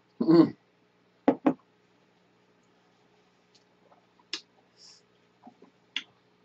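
Drinking glasses handled on a wooden table: a short loud burst near the start, then two sharp knocks close together, like a glass set down on the tabletop, followed by faint scattered clicks.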